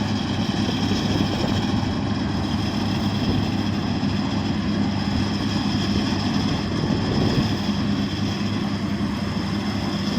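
Heavy construction machine's engine running steadily, with a steady high whine over the engine note.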